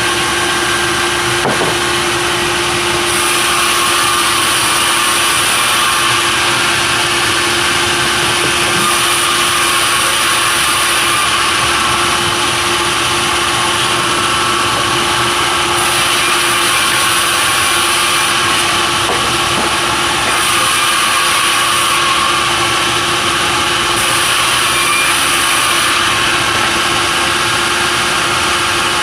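Sawmill saw running continuously with a steady machine hum. A high hiss comes and goes every few seconds, fitting the blade cutting through timber for pallet stock.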